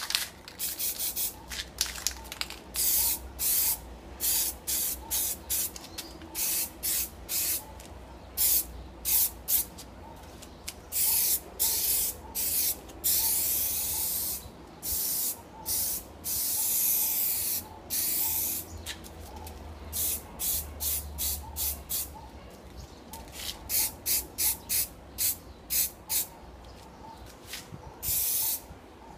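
Aerosol spray can of rubber coating paint (Carlas rubber film, a Plasti Dip-type paint) spraying a coat in many short hissing bursts, with a few longer sprays of a second or two.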